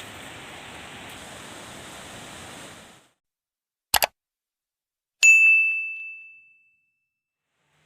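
Steady hiss-like noise that cuts off after about three seconds, a quick double click, then a single high, bell-like ding that rings out and fades over about a second and a half.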